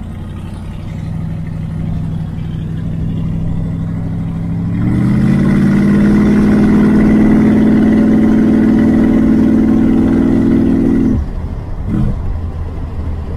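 Car engine running at idle, then revved about five seconds in and held at a steady higher speed for about six seconds before dropping back suddenly.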